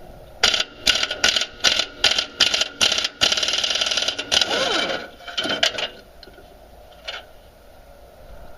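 Pneumatic air tool, likely an impact wrench, working on rusted mower engine mounting bolts that are snapping off. It fires in about eight short bursts, then runs for about two seconds and stops, followed by a few light clicks.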